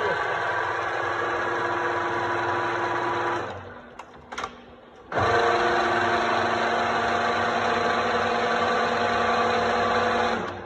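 GAMBIN 3CM milling machine running under power, a steady geared whine of several tones. It stops sharply about three and a half seconds in, a click or two follow, and it starts again about a second and a half later at a different pitch.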